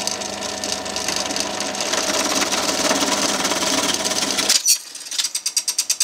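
Scroll saw running and cutting a small piece of wood, a steady machine sound with a low hum that stops abruptly about four and a half seconds in. Near the end comes a quick run of clicks, about ten a second.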